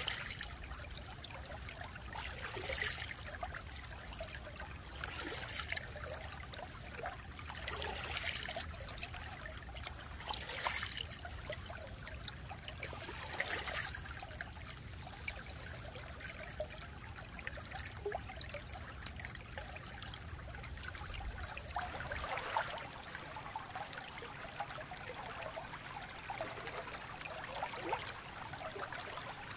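Shallow stream running and trickling over stones close to the microphone, with a brighter gurgle or splash every few seconds. A low hum under the water sound stops abruptly about two-thirds of the way through, where the recording changes over.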